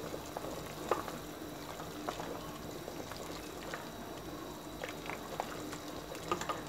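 A pot of freekeh soup bubbling as it cooks, stirred with a wooden spoon, with a few light taps of the spoon against the pot.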